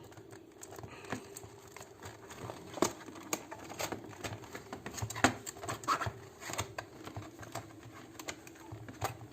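A cardboard headphone box being opened by hand: seal tape torn off and the packaging rustled and crinkled, with scattered sharp clicks.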